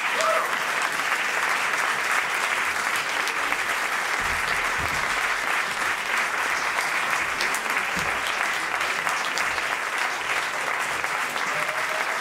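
Audience applauding steadily, a dense even clapping that holds without break.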